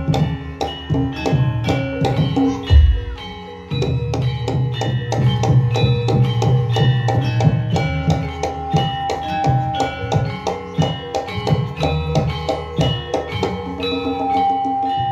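Javanese jaranan-style gamelan music: fast, rhythmic drumming over ringing struck metal percussion, dipping briefly a few seconds in before picking up again.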